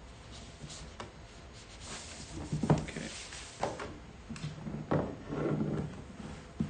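Cardboard packaging being handled: a printed sleeve sliding off a white cardboard box, with rubbing and a few knocks of the box against the desk, the loudest about two and a half seconds in.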